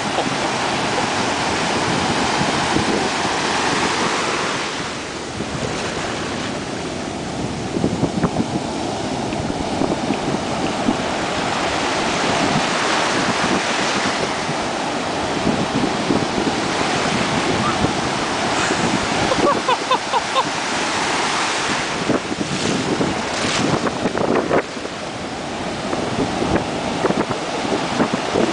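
Ocean surf breaking and washing through the shallows, a continuous loud rush of whitewater.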